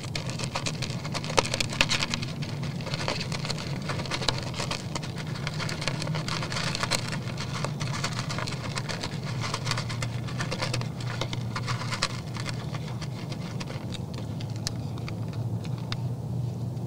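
Two whitetail bucks eating from a feed pan close to the microphone: a dense run of crunching and clicking from their chewing and their muzzles working the feed. It thins out near the end as they raise their heads.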